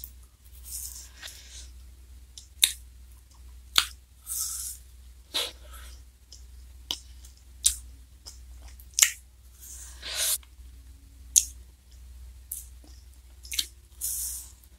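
Close-miked mouth sounds of eating a Glico Wings J-Cone ice cream in a black wafer cone: sharp wet smacks and clicks about once a second, between short hissing slurps as the soft ice cream is licked and bitten.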